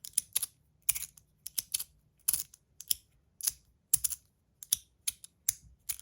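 Budget free-floating magnetic slider fidget being slid back and forth: sharp clicks, not the loudest, as the slide snaps to its magnet stops. The clicks come irregularly, a few times a second, often in quick pairs.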